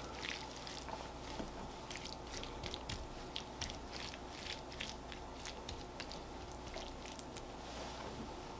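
Stuffing being spread over a pork loin roast: faint, soft moist squishing with many small scattered clicks.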